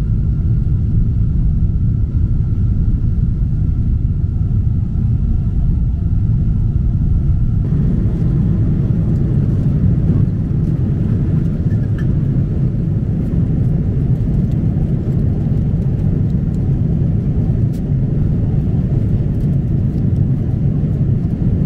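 Steady rumble of jet engines and rushing air inside a Boeing 777 cabin in flight. The noise grows fuller about eight seconds in.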